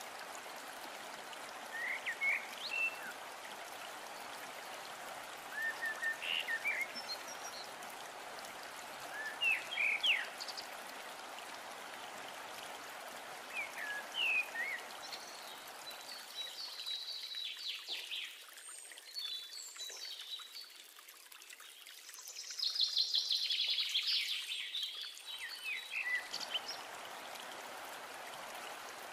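Steady running-water ambience with scattered short bird chirps. For about ten seconds in the middle it drops away, and oil crackles and sizzles in the frying pan as chillies and onions fry, before the water-and-birds sound returns near the end.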